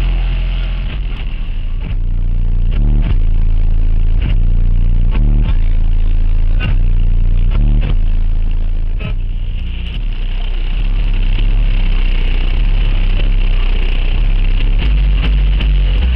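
Very loud bass music from a Sundown Audio car subwoofer system, heard from outside the van: deep notes stepping in pitch, with the van's body panels rattling and buzzing. About ten seconds in the notes settle into a steadier drone and the buzzing grows.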